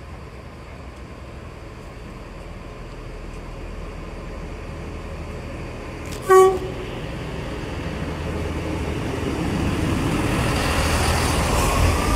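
A train approaching, growing steadily louder, with one short blast on its horn about six seconds in.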